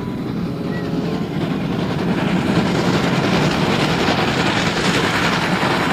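Train running on the rails, a steady rumble and rattle, dubbed in as the toy train is shown.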